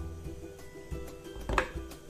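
Background music with changing sustained notes, with one sharp knock about one and a half seconds in.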